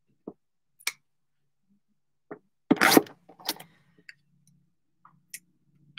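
Scattered handling noises: a few light taps and clicks, with a louder rustling scrape about three seconds in and a faint low hum after it.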